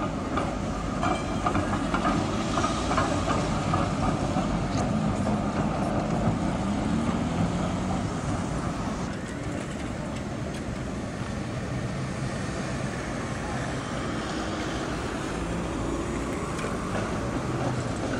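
HTM articulated trams running over street track through a curved junction, wheels clattering on the rails, with the noise of city traffic.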